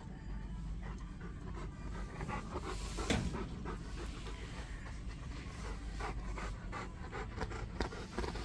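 Bernese Mountain Dog panting steadily with its mouth open, a quick, even run of breaths. A single louder click stands out about three seconds in.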